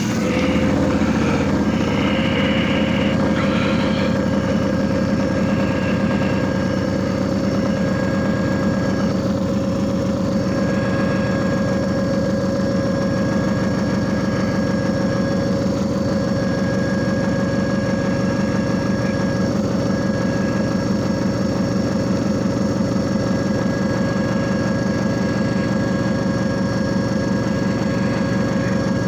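JFJ Easy Pro disc repair machine running: a steady motor hum with a constant whine above it, holding an even level throughout.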